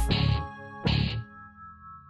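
Outro music: two beat hits about a second apart over held chords, which then ring on and fade away.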